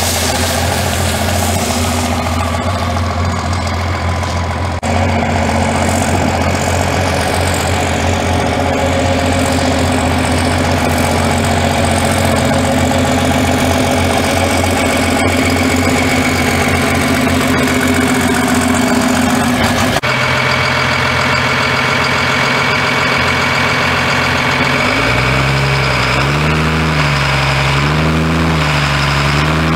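Turbo-diesel engine of a Chevrolet Nova drag car running at low speed on the line, a steady low drone. Near the end the engine speed swings up and down in a slow, wavering rhythm.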